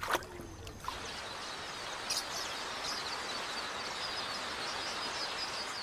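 A huge flock of red-billed quelea chirping, starting about a second in: countless small calls blend into one steady, hissing din.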